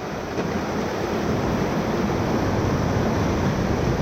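Ocoee River whitewater rushing steadily around a moving raft, with wind buffeting the microphone.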